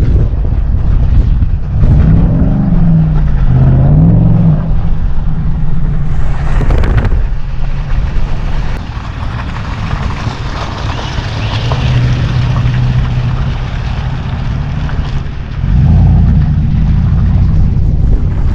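A truck engine revving hard, its pitch climbing and dropping twice a couple of seconds in, with a short loud burst of noise near the middle. It then runs lower under a rushing hiss and comes back up loud near the end.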